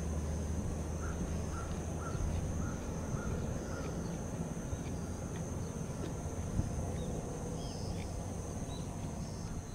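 Crows cawing in a short repeated series over the first couple of seconds, against steady outdoor background with a faint high drone and a low rumble; a few faint higher chirps come later.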